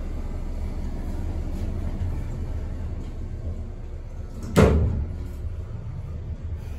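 Elevator car doors sliding shut and closing with a single sharp thud about four and a half seconds in, over a steady low hum.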